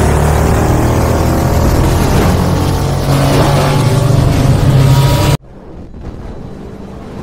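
Futuristic motorcycle engine sound effect, loud and revving with rising pitch, that cuts off suddenly about five seconds in; a much quieter low drone follows.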